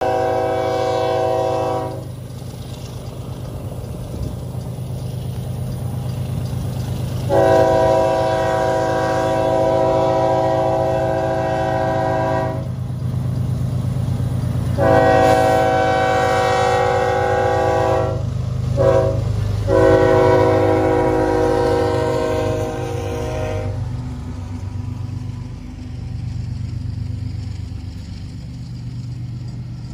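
Diesel freight locomotive horn sounding a chord in the grade-crossing pattern (long, long, short, long) over the steady low rumble of diesel engines; the horn stops about two-thirds of the way through, leaving the drone and rail noise of the locomotives passing close by.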